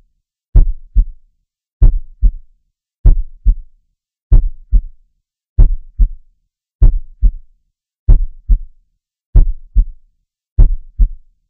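Heartbeat sound effect: slow, steady paired lub-dub thumps, nine beats about one and a quarter seconds apart, with silence between them.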